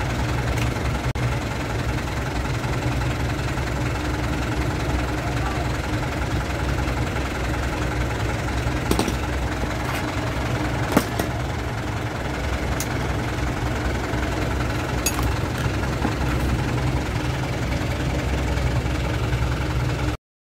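Mitsubishi Colt Diesel truck's 3.9-litre four-cylinder diesel engine idling steadily. A few sharp clicks come about halfway through.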